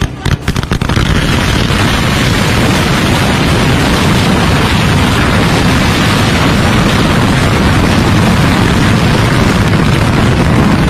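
Masses of small mirchi (chilli) firecrackers going off at once: a few separate bangs, then from about a second in a continuous, dense crackle of countless bangs that does not let up.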